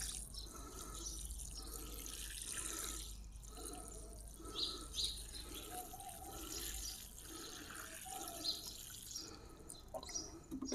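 Water sprinkling from a watering can's rose onto a tub of garden soil and vermicompost, soaking the soil; faint and steady.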